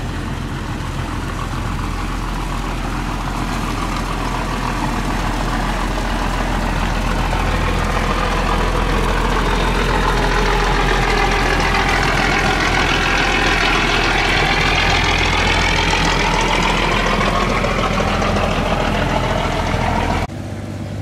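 Engine of a loaded cargo barge (sà lan) under way, running steadily as the boat passes close by at speed. The sound swells as the boat goes by, with a whine that bends up and then down in pitch. It cuts off suddenly near the end.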